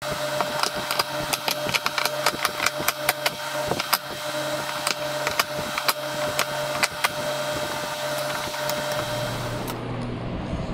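Wooden end-grain cutting-board blocks clacking and knocking together as they are slid and rearranged by hand, with many quick clicks that thin out about seven seconds in, over a steady background hum.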